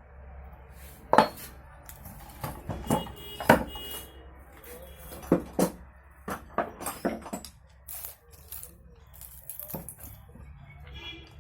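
Irregular metallic clinks and taps of small tools and metal parts being handled on a workbench, about a dozen sharp knocks with the loudest near the start, over a steady low hum.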